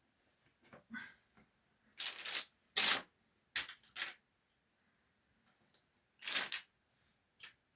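Irregular short clicks and rustling scrapes, with a few louder scraping bursts in the middle and a second cluster near the end.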